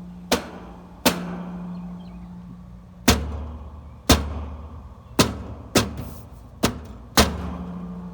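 Eight sharp knocks at uneven intervals as a hand taps on an outdoor air-conditioning condenser unit, with a steady low hum that starts and stops between some of the taps. The tapping is done to jolt the unit into running; the owner takes the fault for some kind of intermittent short.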